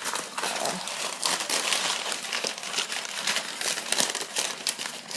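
Packing material being handled and crinkling as an item is pulled out of a box, a dense, continuous run of small crackles.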